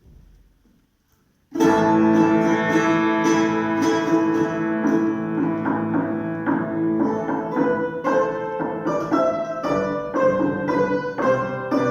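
Instrumental duet music, with plucked strings in the sound, beginning about a second and a half in: quick repeated plucked notes over held tones.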